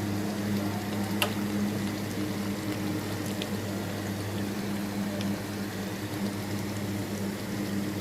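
Chicken masala simmering and bubbling in a pan, over a steady low hum, with a sharp click about a second in and a few fainter ticks.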